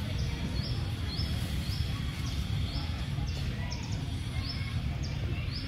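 A short, high chirp repeating at a steady pace, about every half second, over a steady low rumble.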